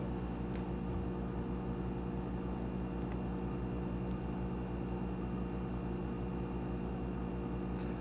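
Steady low electrical hum with a faint hiss over it: background room noise while nothing moves.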